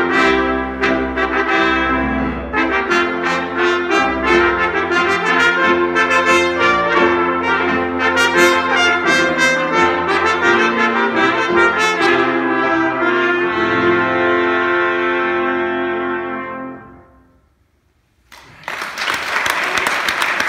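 Three trumpets and a piano playing, ending on a long held chord that dies away about seventeen seconds in. After a second of silence, applause breaks out.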